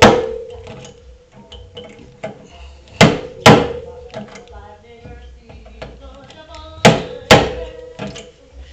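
Sharp metal knocks in pairs about half a second apart, three times, each leaving the steel panel ringing at a steady tone: a slide hammer pulling on pins welded to a dented car body panel. Music plays faintly underneath.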